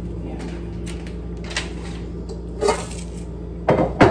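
Dishes and kitchenware being handled: a few short clinks and knocks, the loudest cluster near the end, over a steady low hum.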